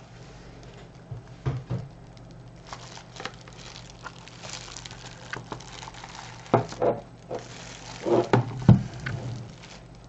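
Clear plastic wrapping crinkling and rustling as an electric kettle's power base with its cord, and the kettle body in its plastic bag, are handled. A few light knocks come in amid the crackling, the loudest between about six and nine seconds in.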